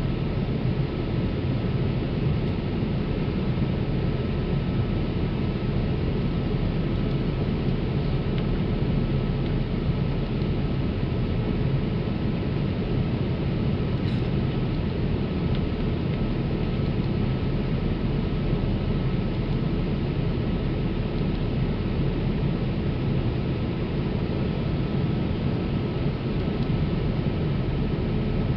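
Steady cabin noise of a Boeing 787 Dreamliner in cruise: an even rush of airflow and engine noise, heaviest in the low end, with a faint steady whine over it.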